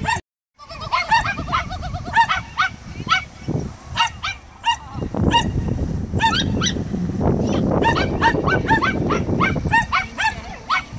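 Small dog barking repeatedly, excited high-pitched yaps about two or three a second while it runs an agility course, with a low rumble under the barks for several seconds in the middle.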